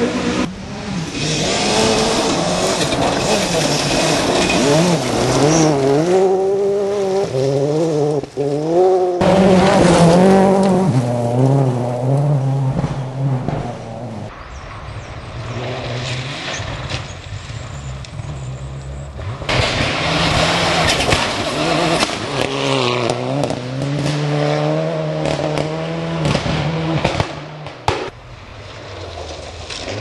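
Rally cars driven hard on a gravel stage: engines revving high, the pitch climbing and dropping in steps with the gear changes, over a hiss of gravel and tyre noise. The loudest passes come about ten seconds in and again about twenty seconds in.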